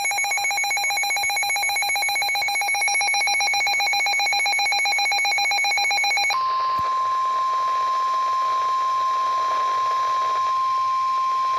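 NOAA Weather Radio alert tones. A rapidly pulsing electronic alert tone sounds for about six seconds, then a steady single-pitch tone, the 1050 Hz warning alarm tone, runs on. It signals that a warning is about to be read, here a severe thunderstorm warning.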